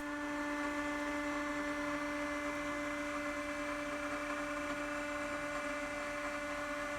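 A small electric motor running at a steady speed, giving an even, unchanging hum.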